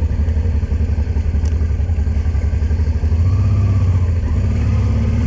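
Motorcycle engine running at low speed as the bike rolls over cobblestones, the revs picking up briefly about three seconds in.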